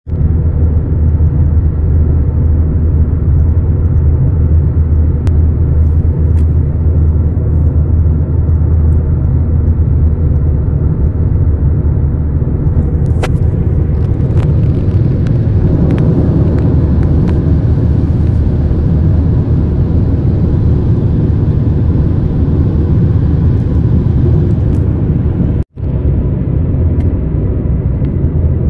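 Road and engine noise inside a car's cabin while it drives at highway speed: a steady low rumble. It cuts out for an instant near the end.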